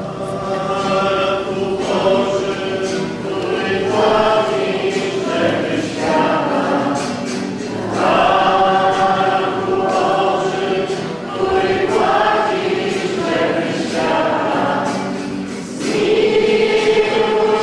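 A women's choir singing a church hymn together in long held notes, phrase after phrase with short breaths between.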